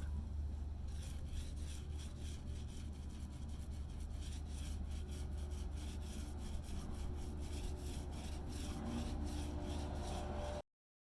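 Hand sanding of a wooden dresser: quick back-and-forth rubbing strokes, about three a second, over a steady low hum. It cuts off suddenly near the end.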